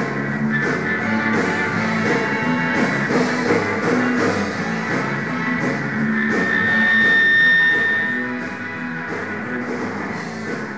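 Rock band playing live through a bar PA: electric guitar and bass over a steady drum-kit beat. About six seconds in, a high note is held for a couple of seconds.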